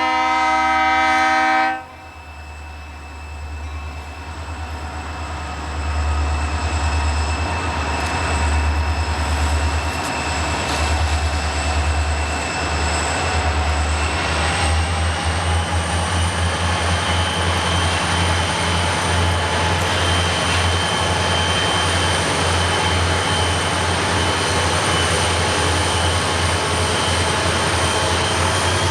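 A diesel locomotive's multi-note air horn sounds and cuts off about two seconds in. Then the diesel engines work with a steady throbbing rumble and a thin high whine, growing louder around six seconds and again near the middle, where the whine rises slightly in pitch.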